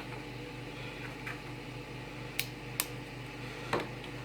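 A few sharp clicks and snaps as plastic support material is broken off a freshly 3D-printed part, two of them louder in the middle, over a steady low hum.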